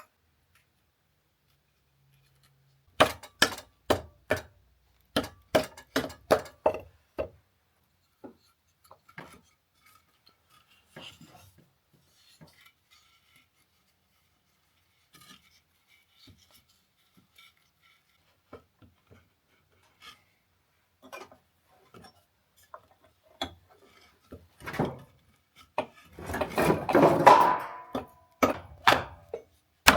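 Hand woodworking on a charred-pine mortise-and-tenon joint: a quick run of sharp knocks on wood, scattered small clicks and taps of tools being handled, and a scraping rasp of about two seconds near the end followed by more knocks.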